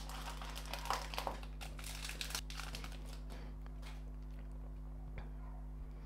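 Crinkling of a trading-card pack's foil wrapper being handled and opened over the first couple of seconds, followed by a fainter rustle of cards slid through the hand.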